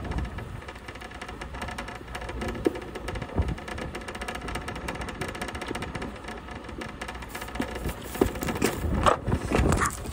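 An engine running steadily with a constant hum, as from the truck idling beside the trailer. Near the end come loud knocks and rustling as the phone filming is handled.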